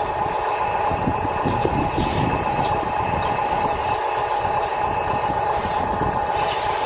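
Small electric motor of a radio-controlled toy excavator running with a steady whine, over a low rumble and a few light scrapes and clicks.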